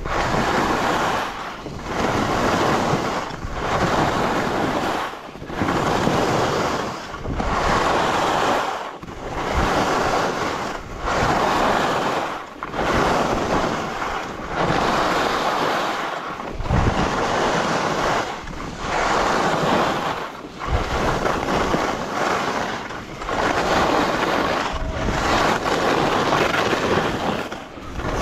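Skis hissing over snow in a steady run of turns, one swell of swishing about every second and a half, with wind rumbling on the microphone now and then.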